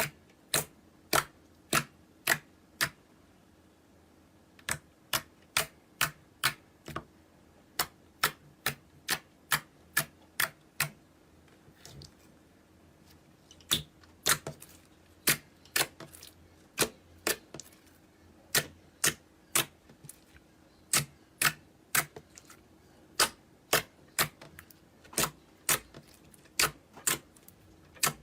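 A knife cutting through a dry bar of soap, each stroke a crisp click, about two a second in runs with short pauses.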